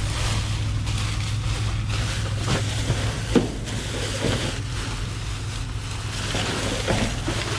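Rustling and knocking of trash being rummaged through in a dumpster, with one sharp knock about a third of the way in, over a steady low rumble of wind or a running engine.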